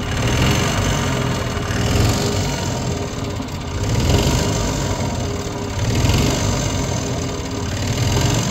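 Yamaha G2 golf cart's single-cylinder four-stroke gas engine running, its level rising and falling slightly every couple of seconds, with a carburetor that the owner says needs its main jet cleaned.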